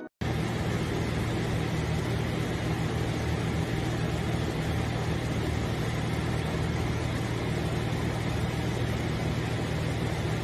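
Steady engine-and-propeller drone of a high-wing light aircraft in flight, heard from inside its cabin: a low hum under an even rush of air. It cuts in suddenly just after the start.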